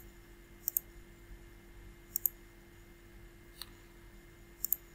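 Computer mouse button clicking: three quick press-and-release double clicks about a second and a half apart, with one single click between the second and third.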